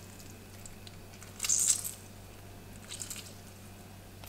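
A lemon half being squeezed by hand, its juice squishing out through a small mesh strainer into a saucepan of diced strawberries: a short wet squelch about a second and a half in and a fainter one near three seconds.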